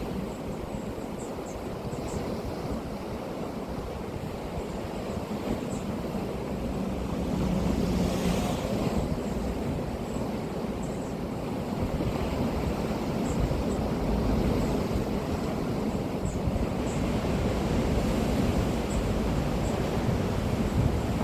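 Sea surf washing onto the shore in a continuous rush. A wave breaks with a louder, hissing crash about eight seconds in.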